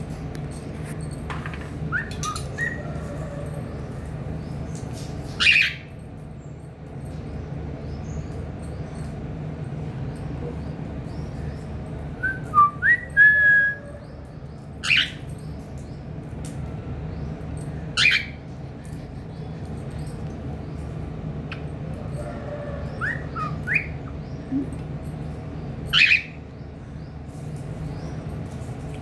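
Pet cockatiel giving short, sharp chirps every few seconds, with brief whistled notes in between, over a steady low hum.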